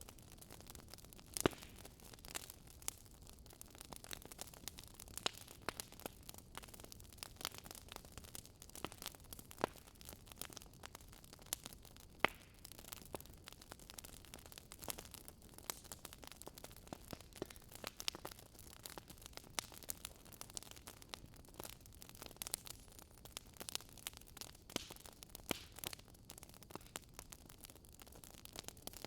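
Wood fire crackling: irregular sharp pops and snaps over a soft steady hiss, with louder pops about a second and a half in and again near twelve seconds.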